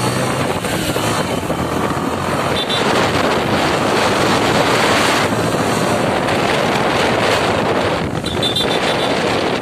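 Loud wind buffeting the microphone over the rushing noise of a moving vehicle, recorded while riding in the open. Two faint short high chirps come through, about a third of the way in and near the end.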